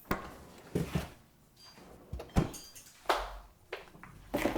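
Household handling noises: about six short knocks and thuds, spread unevenly through a few seconds, with light rustling between them, like doors and objects being moved around a kitchen.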